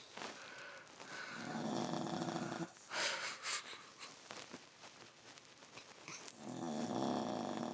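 Cocker spaniel–chihuahua mix dog snoring: two long rattling snores about five seconds apart, with a short breathy exhale after the first.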